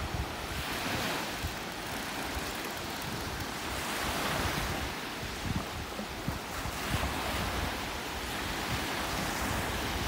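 Small sea waves breaking and washing up a sandy beach: a steady surf wash that swells every two to three seconds. Wind buffets the microphone with a low, gusty rumble.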